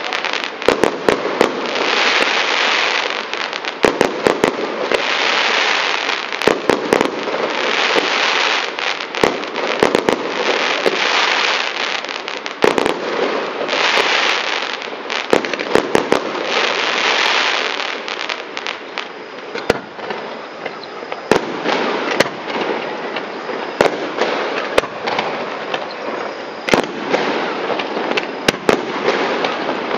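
Fireworks going off: many sharp bangs and crackles, with a loud hissing rush every few seconds through the first half.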